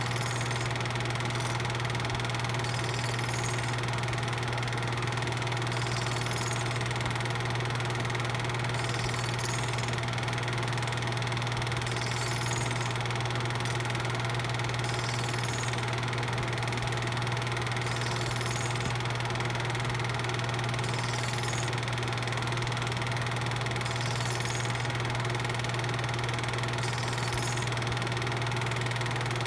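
8mm film projector running: a steady mechanical motor drone with a faint tick about every two seconds.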